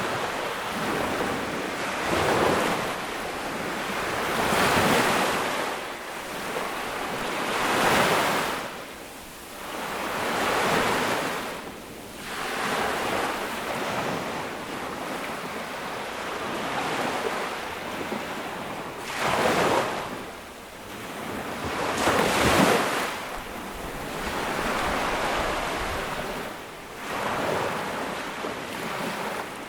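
Sea waves breaking and washing up a beach, one surge every few seconds, the strongest near the end. Wind is on the microphone.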